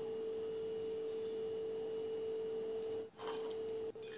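A steady pure tone, one held note with no other pitch above it, breaking off for an instant twice, a little after three seconds in and again near the end.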